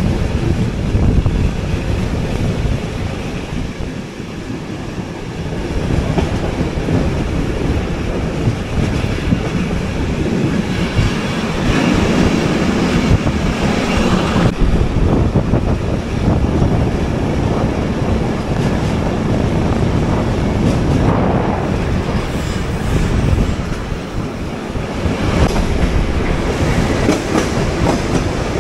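Passenger train running along the track, heard from on board: a continuous loud rumble of the wheels on the rails.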